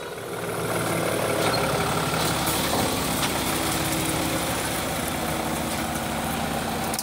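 Diesel engine of a semi-truck tractor unit running steadily at low revs as it pulls its trailer slowly past.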